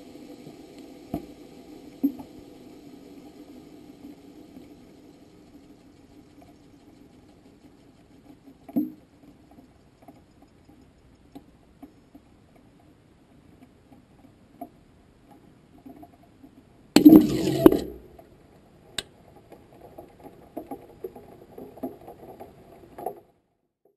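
Faint rattling and clinking from an amateur rocket's body and fittings, heard through its onboard camera's microphone, with a few sharp knocks. About 17 seconds in comes one loud clattering bang lasting about a second, which the uploader takes for the rocket striking something at altitude. The sound cuts off suddenly near the end.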